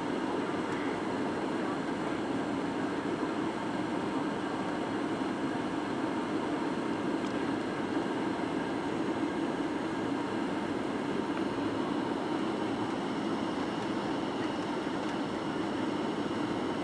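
Steady cabin noise inside a Boeing 737-800 on final approach: a low hum from its CFM56-7B engines mixed with rushing airflow, with faint steady whining tones above.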